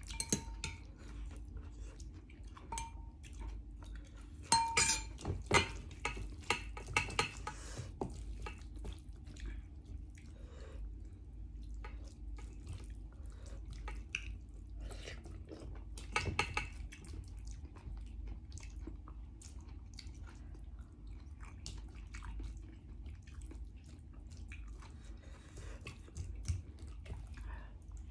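Eating at the table: utensils clinking against a dish, with scattered small clicks and some chewing. The loudest clinks come about five seconds in and again around sixteen seconds.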